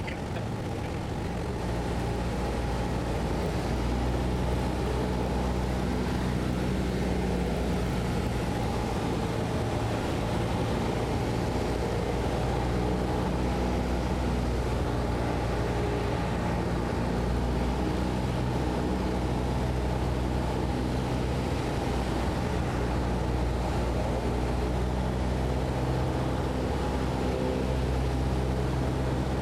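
Light single-engine aircraft's piston engine and propeller droning steadily, heard from inside the cockpit on final approach to the runway.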